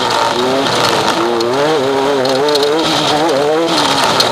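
Off-road race vehicle's engine at speed, its pitch rising and falling again and again as the throttle comes on and off, over a loud steady rush of wind and rattling.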